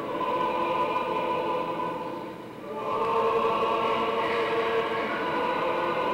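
Church choir singing liturgical chant in long held chords, breaking off briefly between phrases about halfway through and then going on.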